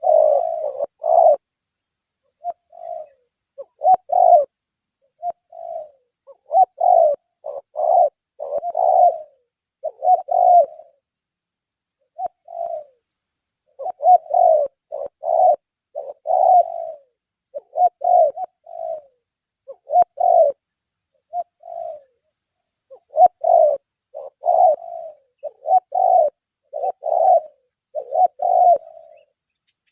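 Spotted doves (tekukur) cooing over and over, phrases of a few low coos with short gaps between them.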